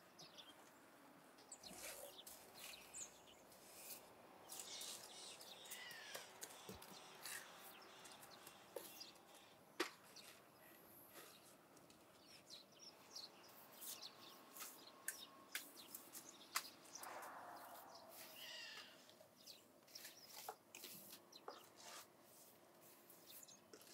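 Faint outdoor quiet with scattered small taps and scrapes from plaster being worked onto a shed wall by hand, and a few bird chirps.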